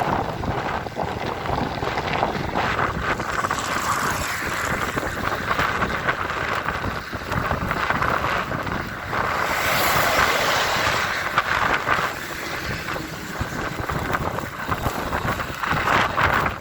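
Strong wind buffeting the microphone: a continuous rushing rumble that swells and eases in gusts, loudest about ten seconds in.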